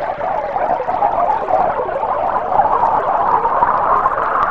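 Physics-based synthesized sound of a stream of water pouring into a glass tank, simulated from two-phase bubbly flow: a steady, bubbly pouring sound that rises a little in pitch near the end as the tank fills.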